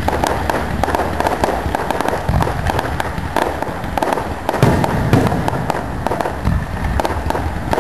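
Fireworks display: dense, rapid crackling and popping, with several deeper booms of shells bursting overhead.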